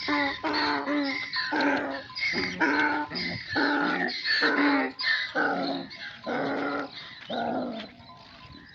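An animal calling over and over at an even pace, about two loud calls a second, each at much the same pitch, thinning out near the end.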